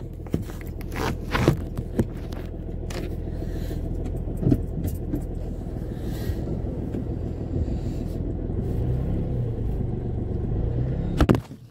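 A car engine running, heard from inside the cabin during slow back-and-forth parking moves. There are several sharp knocks in the first few seconds from the dashboard camera toppling and being handled. The engine note rises and wavers near the end, then drops away suddenly just before the end.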